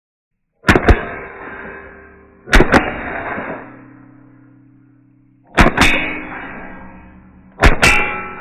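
Four rimfire rifle shots about two seconds apart, each followed a split second later by the clang of the bullet striking a steel plate, which rings on with a fading, steady tone.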